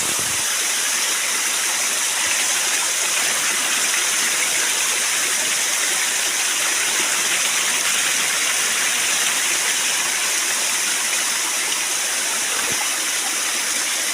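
Waterfall: falling water rushing steadily at an even level.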